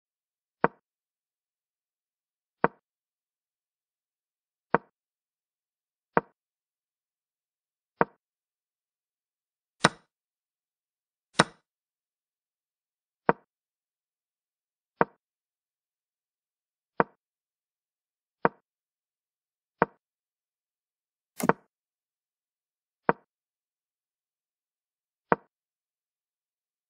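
Chess-app move sound effects: a short wooden click as each piece lands, one per move about every one and a half to two seconds, fifteen in all. Two brighter, sharper capture clicks come about ten and eleven seconds in, and a double click for castling comes about two-thirds of the way through.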